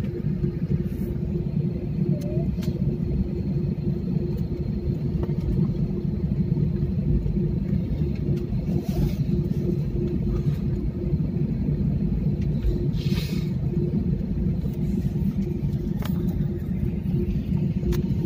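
Jet airliner cabin noise during the takeoff roll: a steady, dense low rumble from the engines and the wheels on the runway, with a steady hum over it.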